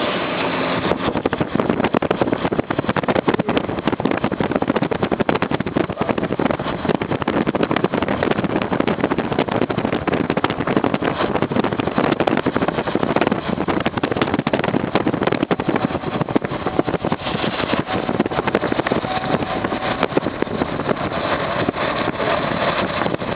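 Car noise heard from inside the cabin: a loud, steady rushing rumble with no horn blast.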